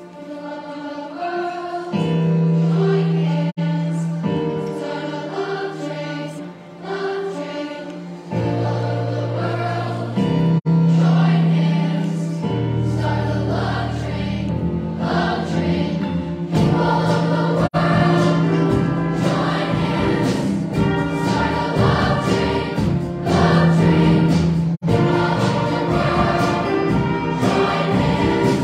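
Large middle-school choir singing with a string orchestra accompanying. It starts softly and grows fuller and busier about halfway through.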